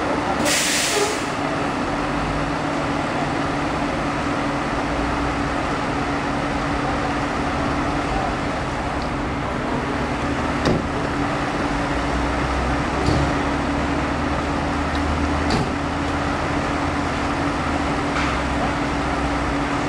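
Fire engine's diesel engine idling: a steady low rumble with a constant drone, a brief loud hiss about a second in, and a few faint clicks.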